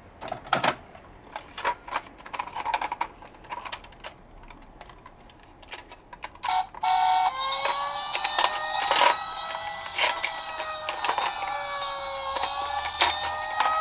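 Scattered small plastic clicks and knocks. About seven seconds in, a toy emergency vehicle's electronic siren starts, a wail that slowly rises and falls, with more clicks over it.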